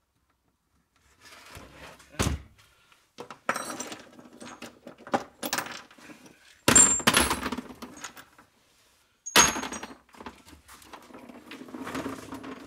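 Small brass pipe fittings dropped and tossed by hand into a plastic crate: a string of irregular knocks and metallic clinks, several with a brief high ring, the loudest about two, seven and nine and a half seconds in.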